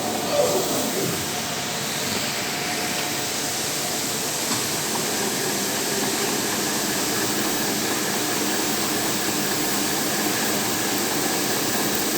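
CNC drilling machine running steadily as it cuts copper wire, giving an even machine noise. A faint high whine joins about five seconds in.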